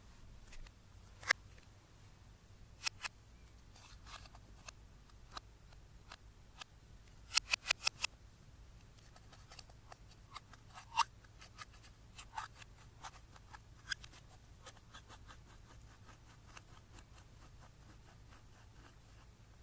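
Scattered sharp clicks and snaps from hands handling makeup and slime, with a quick run of five clicks about seven seconds in and a patter of faint clicks near the end.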